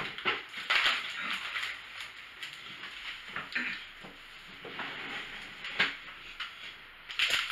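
Paper food wrapping and a cardboard takeout box rustling and crinkling as they are handled, in short uneven bursts with a few light clicks.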